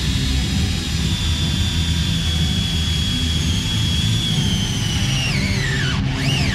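DeWalt cordless drill with a step bit whining at full speed as it bores a drain hole in a transmission pan. The whine holds steady for about five seconds, winds down, then rises and falls once more in a short trigger blip near the end.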